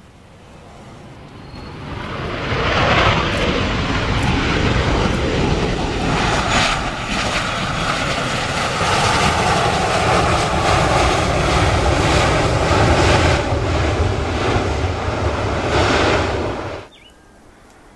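Twin rear-mounted jet engines of a business jet at high power during its takeoff run. The loud jet noise with a steady whine builds over the first couple of seconds, holds, then cuts off suddenly near the end.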